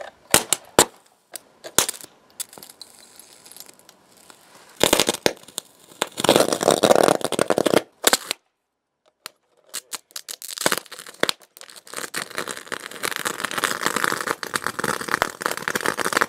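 High-current electric arcing from a 48-volt bank of four lead-acid batteries in series, shorted through a copper rod into a motherboard as it burns. A few sharp cracks come first, then a burst of crackling about five seconds in. After a break of about two seconds, dense crackling sets in and continues.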